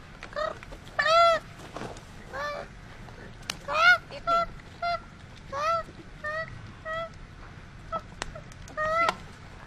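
An injured koala, burned in a bushfire, crying in distress as water is poured over it. The cries are short and high, rising then falling in pitch, about eleven of them, the loudest about 1 s and 4 s in.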